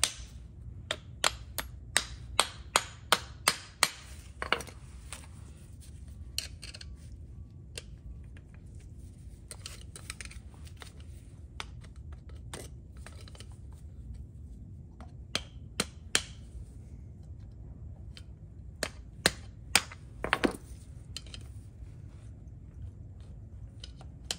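Claw hammer tapping a small part onto a parking brake shoe: a quick run of about ten light metal taps in the first four seconds, then occasional single taps and clinks of metal on metal.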